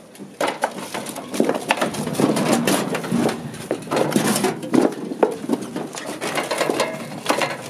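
Dense, irregular crunching, clattering and scraping of broken concrete block, brick and wood debris underfoot as people walk over rubble.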